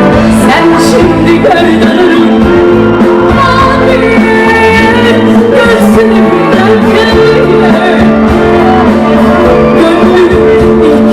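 Live band music with a voice singing over it, loud and steady throughout.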